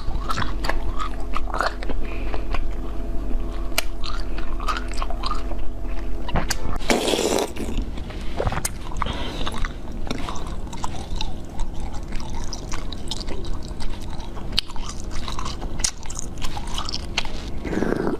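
Close-up biting and chewing of food, with many sharp clicks and wet mouth sounds.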